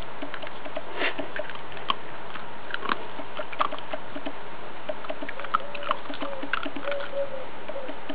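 Groenendael puppy chewing a piece of raw guineafowl carcass: irregular sharp clicks and crunches of small bones. In the second half a pigeon coos in the background.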